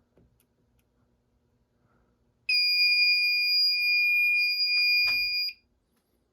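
Fire alarm system sounder giving one steady, high-pitched tone for about three seconds, then cutting off. A sharp click comes just before it stops.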